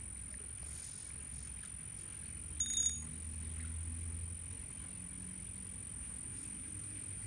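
Quiet outdoor ambience: a steady thin high-pitched tone over a low rumble. About two and a half seconds in comes one brief, bright bell-like ring.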